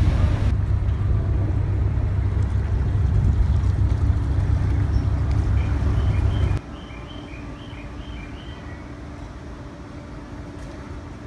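Steady low engine rumble of a river boat under way. It cuts off abruptly about two-thirds of the way in, leaving quieter outdoor ambience with a faint steady hum and a short run of high chirps.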